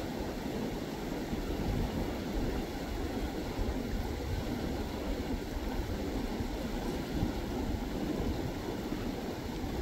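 Wind buffeting the microphone: a steady, even low noise without breaks.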